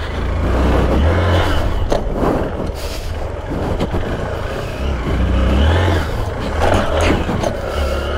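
Dirt bike's engine running under the rider, its revs rising and falling as it rides over humps on a dirt track, with wind rumbling on the microphone.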